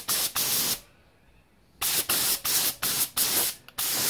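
Gravity-feed spray gun spraying a quick single coat of paint in short hissing blasts: two at the start, a pause of about a second, then a quick run of blasts about three a second.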